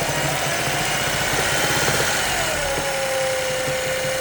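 Volkswagen Gol 1.0 three-cylinder engine idling, with a steady whine over the running note that drops slightly in pitch about two and a half seconds in. The noise is one the owner cannot place: a strange fault, or normal for a three-cylinder.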